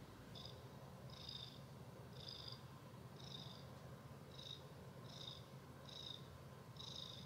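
Faint, steady purring from a tuxedo cat lying in a lap, with a soft high squeak recurring about once a second.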